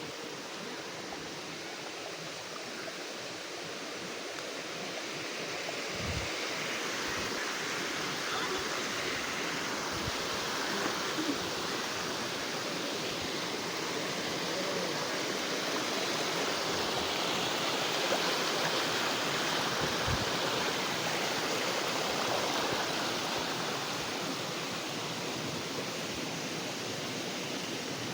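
Steady rushing of a small river's flowing water, growing a little louder a few seconds in.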